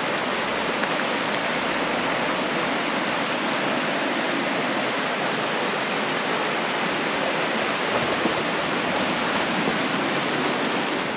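Small mountain creek rushing over rocks and riffles, a steady, even rushing of water.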